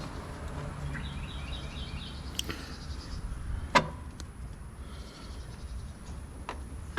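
Scattered light clicks and knocks of hand tools and hardware being handled, with a short run of quick high chirps about a second in.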